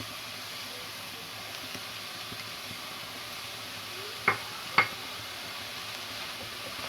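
Shrimp and vegetables sautéing in butter in a pan, a steady sizzle, with two short clicks about four and a half seconds in.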